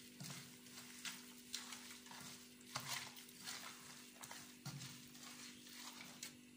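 Hands rubbing and squishing wet grated onion into pieces of half-boiled chicken in a metal bowl: irregular wet rubbing strokes, one or two a second. A steady low hum runs underneath.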